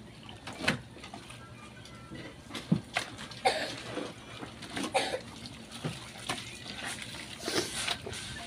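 A hand rummaging through blue swimming crabs in a basin of shallow water: irregular splashes and the clatter of shells knocking together, a few louder knocks among them.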